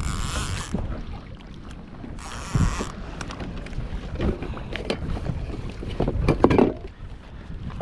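Wind buffeting the microphone over water around a kayak, with two short hissing rushes near the start and irregular knocks and clicks on the boat, the loudest about six seconds in.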